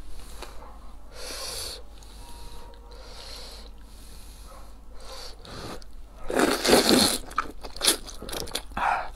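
A person slurping thick wide noodles, loudly, in a few breathy bursts starting about six seconds in, with eating sounds between.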